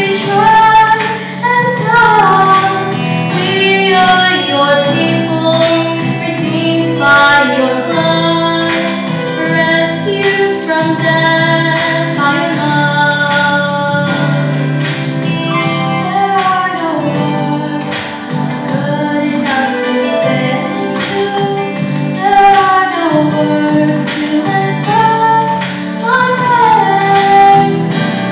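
Children's chorus singing a worship song with instrumental accompaniment, the melody rising and falling in long sung phrases.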